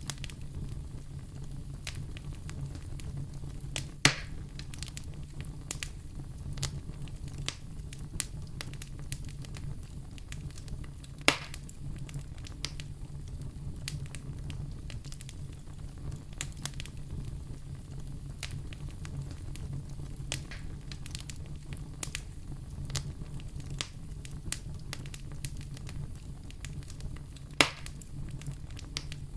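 Wood fire crackling in a fireplace: a steady low rumble under scattered small crackles, with three sharper, louder pops spread through.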